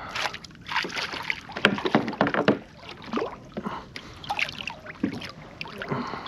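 Irregular knocks, rubs and small water splashes aboard a fishing kayak as a freshly caught small drum is handled.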